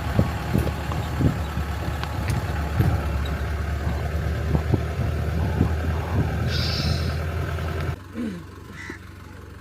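Steady low rumble of a vehicle on the move, with occasional short bumps. About eight seconds in it cuts off abruptly, giving way to quieter surroundings with a short falling call.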